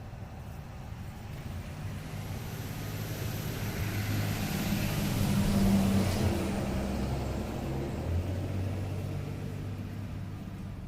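A motor vehicle passing by on a street, its engine and road noise swelling to a peak about six seconds in, then fading away.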